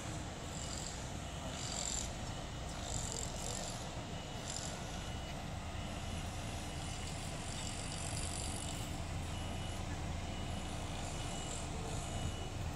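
Diesel construction machinery running with a steady low rumble, with short faint high beeps now and then.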